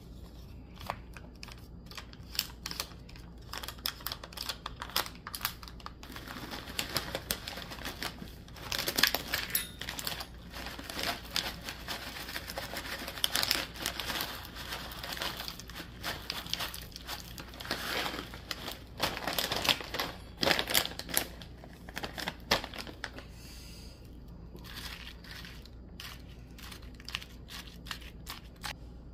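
Plastic granola pouch crinkling and tearing as it is handled and opened, with granola poured into a plastic yogurt cup and a metal spoon clicking and scraping in the cup. The crinkling comes in irregular bursts, loudest in the middle.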